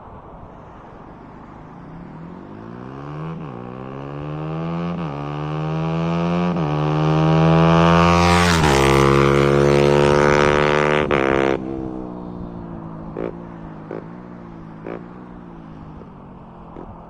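Voge 125R single-cylinder 125 cc motorcycle with an imitation Akrapovic exhaust accelerating toward the listener, the engine note climbing and breaking three times on upshifts. It passes about nine seconds in with a sharp drop in pitch, the sound cuts off suddenly soon after, then fades away with a few sharp pops.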